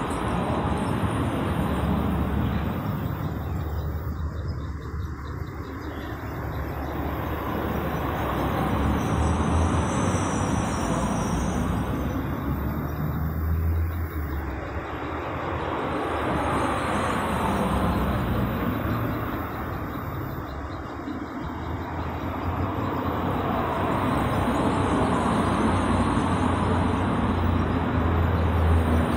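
Steady outdoor road-traffic noise: a low rumble and hiss that slowly swell and ease as vehicles go by.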